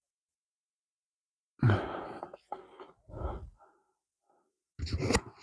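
A man sighing and breathing out heavily close to the microphone, several breaths in a row starting under two seconds in, with a louder one near the end.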